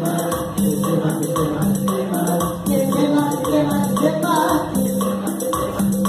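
Live upbeat music from an electronic keyboard rig with a steady, quick percussion beat, accompanying a Catholic praise song that people are dancing to.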